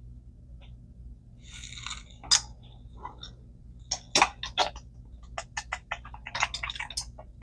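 Small metal parts of a Daiwa HT 1500FL baitcasting reel being worked by hand and with a tool: a short scrape, a sharp click, then a quick run of light clicks and taps.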